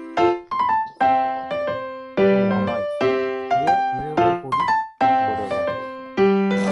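Background music on a piano-like keyboard, with chords struck about once a second and each left to ring and fade.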